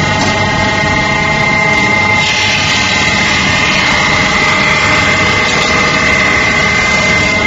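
CNC brake lining arc grinding machine grinding the inner arc of a stack of drum brake linings: a steady high whine over a rough grinding noise, which grows stronger about two seconds in.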